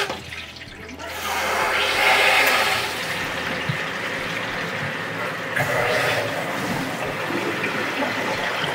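Water rushing through a freshly opened ball valve into the empty housings of a three-stage whole-house water filter as they fill. It is a steady hissing rush that starts about a second in, is loudest soon after, and surges again a little past halfway.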